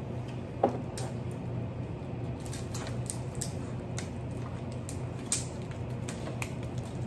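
Crab-leg shells being cracked and pulled apart by hand: scattered sharp cracks and clicks, the loudest about two-thirds of a second in, over a steady low hum.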